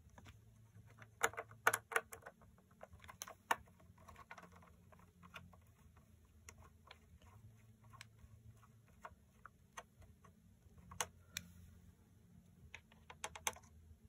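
Small screwdriver driving a screw back into a motherboard's M.2 heatsink: faint, irregular clicking and ticking of the tip and screw as it is turned by the fingers, with a few sharper clicks now and then.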